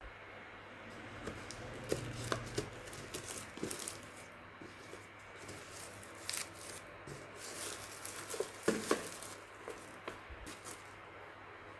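Plastic packaging crinkling and tearing in irregular crackles, typical of a packaged jelly cup being opened.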